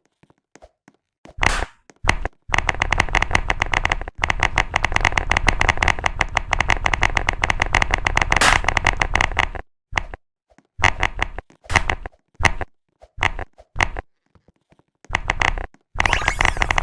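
Typing on a computer keyboard: a fast, continuous run of key clicks for several seconds, then short bursts of keystrokes with pauses between them.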